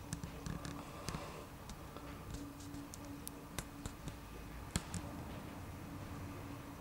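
Faint, irregular clicks and ticks over a low steady hum, with one sharper click a little before the five-second mark.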